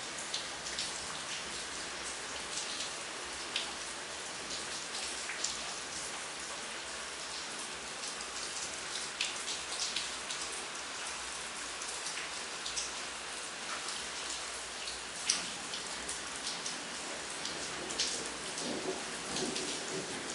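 Aquarium water bubbling and splashing at the surface: a steady hiss scattered with many small drips and pops. A low rumble comes in near the end.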